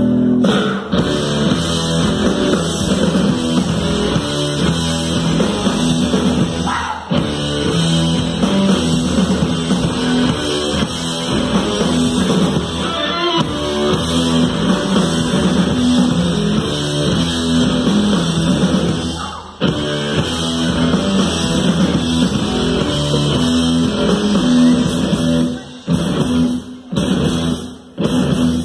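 Rock band playing live: electric guitars, bass, drum kit and synthesizer. Near the end the band cuts off in several short stop-start hits.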